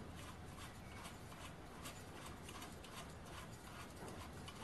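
Faint, irregular ticking and scraping of metal threads as the loosened halves of a screw-together spark plug, clamped in a vise, are unscrewed by hand, over a low steady hum.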